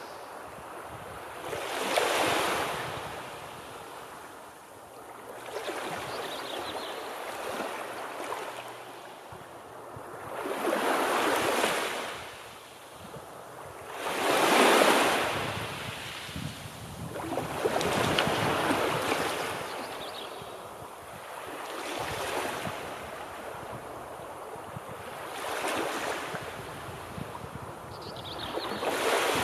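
Gentle sea surf: small waves breaking and washing up the shore, swelling and fading every three to four seconds, with the loudest wave about halfway through.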